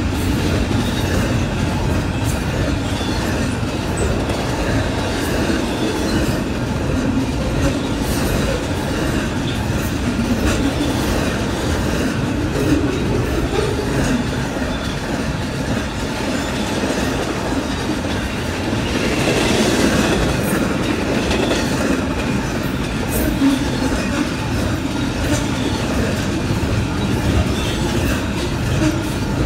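Intermodal freight train's double-stack container cars and trailer flatcars rolling past: a steady rumble of steel wheels on rail with clickety-clack over the rail joints.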